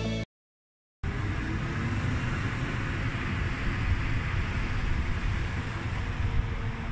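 Low, steady rumble of a large lorry's engine as it drives slowly along the road, mixed with wind on the microphone.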